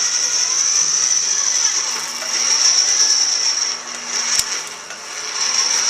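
Half-inch electric drill, held at a slow speed by a speed controller, running steadily as it turns a mower blade spindle that winds copper wire pulled through a stripping cutter. A steady high whine with mechanical rattling, one sharp click about four seconds in, and a short dip in loudness near the end.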